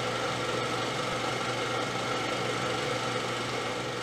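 Film projector running: a steady mechanical whir.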